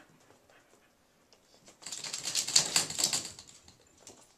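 A burst of rapid clicking and scratching, about a second and a half long, from four-week-old puppies' claws scrabbling on a hard surface.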